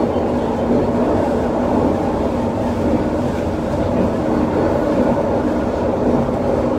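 SkyTrain linear-induction-motor train running at speed along an elevated guideway, heard from inside the car: a steady, even running noise with no distinct wheel clicks.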